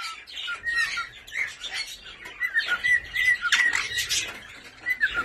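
Caged small parrots chirping and whistling: many short, quick calls overlapping, with a louder run of calls about four seconds in.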